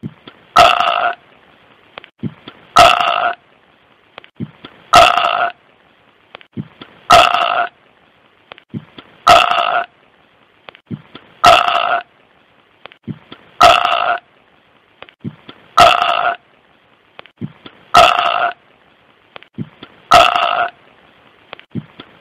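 A short burp-like sound repeated at even intervals, about every two seconds, ten times over, like a looped sound effect. A faint steady hiss and small clicks lie between the repeats.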